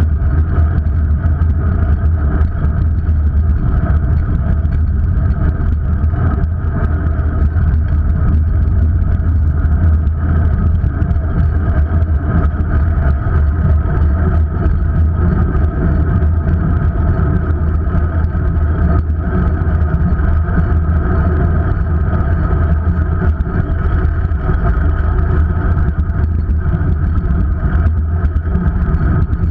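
Steady low rumble of wind and road noise on a camera riding along a bike lane, with a steady hum above it and no break.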